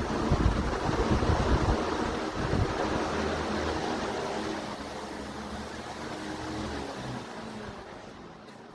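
Electric pedestal fan running, its airflow buffeting the microphone as a rushing, gusty wind noise, fading somewhat over the last few seconds.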